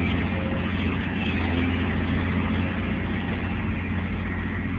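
Heavy diesel engine of an excavator running steadily, without revving.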